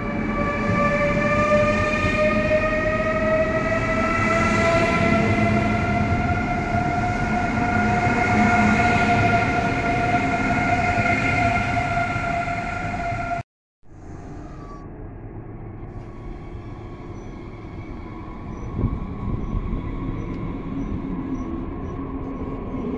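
Deutsche Bahn ICE high-speed electric train's traction motors whining, several tones climbing slowly in pitch as the train gathers speed. About 13 seconds in the sound cuts off abruptly, leaving quieter station rumble with faint, evenly spaced high pips.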